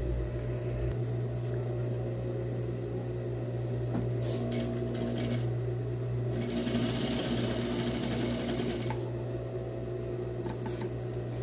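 Electric sewing machine running steadily, stitching a seam around the fabric with an even rhythm, with a few sharp clicks near the end.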